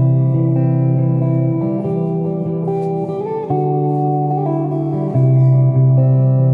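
Guitar music: sustained plucked notes and chords that change every second or two.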